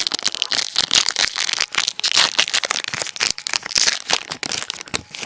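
Foil wrapper of a Yu-Gi-Oh booster pack crinkling and tearing as it is opened by hand: a dense, steady run of sharp crackles.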